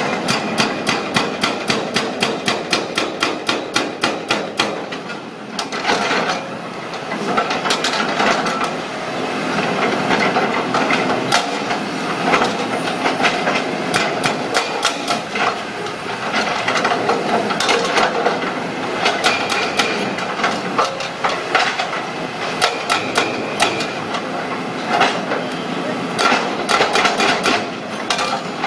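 Excavator-mounted hydraulic breaker hammering into concrete: rapid, loud chisel blows at about five a second in long runs, broken by a few short pauses.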